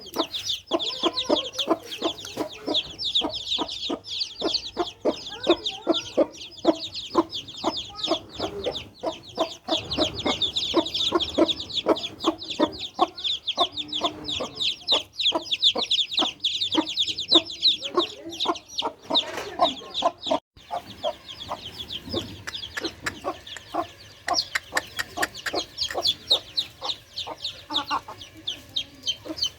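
Newly hatched deshi chicks peeping non-stop in a high, crowded chorus, with a deshi hen clucking lower beneath them. A brief break about twenty seconds in.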